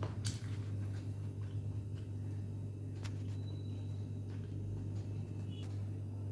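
A steady low hum with a few faint, sharp clicks: one just after the start, one about three seconds in and one near the end.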